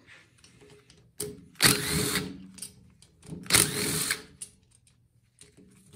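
Cordless Craftsman impact driver with a 10 mm socket on an extension, run twice in bursts of about a second to spin out the crankcase bolts of a Honda EU2000i engine, with faint clicks of the socket and parts in between.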